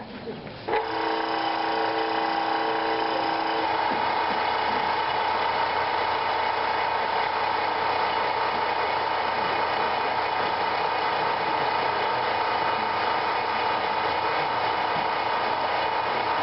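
Hydraulic power unit driving a test ram, starting abruptly about a second in and then running steadily with a constant whine. Some of its tones change about four seconds in, and the sound stays steady after that. The ram is still advancing toward the load frame and has not begun loading.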